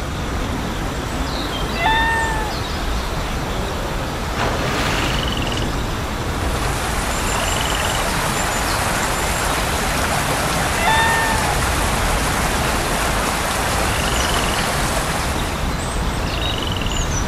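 Steady rain falling, its hiss growing brighter about six seconds in and easing near the end. Short, high pitched calls come through it several times, two louder ones about two and eleven seconds in.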